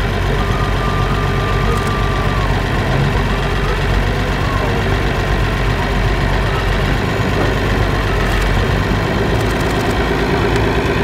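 Oliver 1755 tractor engine running at a low, steady speed as the tractor creeps slowly forward along a balance-beam ramp.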